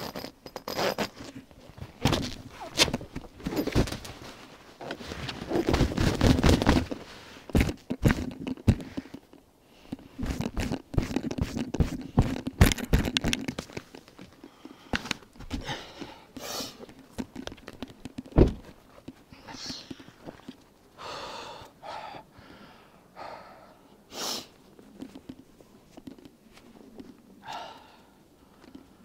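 A person moving around in a pickup truck's bed and climbing out over the tailgate: a dense run of knocks, thuds and scraping for about the first fourteen seconds, a single sharp knock a few seconds later, then scattered crunches and rustles as he steps in the snow.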